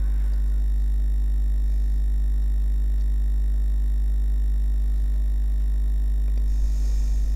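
Steady low electrical mains hum with a buzzy edge, running unchanged.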